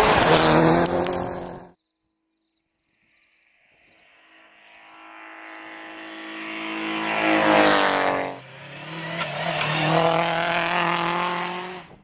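Rally car engine at high revs, cut off suddenly. After a short silence a rally car approaches at full throttle and passes close by, its engine pitch dropping as it goes past. Another rally car engine then runs at high revs.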